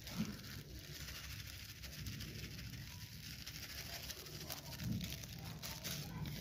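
Faint patter of small seeds being poured from a plastic packet into a small steel bowl and stirred by hand, heard as a scatter of light ticks.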